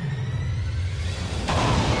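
Deep rumbling from an animated fight's sound effects, then a sudden loud blast about one and a half seconds in.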